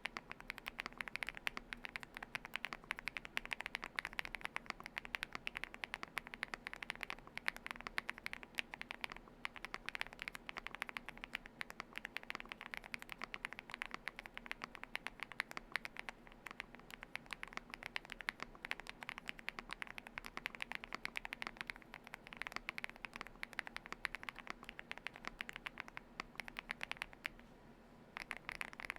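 Fast, continuous typing on a Galaxy80 mechanical keyboard with lubed Gateron Smoothie linear switches, a tape-modded and foam-filled build. The rapid keystrokes stop for about a second near the end, then start again.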